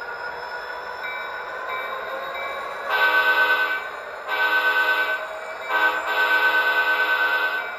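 Model diesel locomotive's sound system sounding a multi-chime air horn three times, starting about three seconds in, the last blast the longest, over a steady engine hum from the same model.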